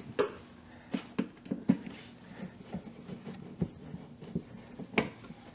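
Irregular light clicks and knocks of plastic parts being handled and pressed back into place as the upper rear brake light's bulb socket and housing are refitted.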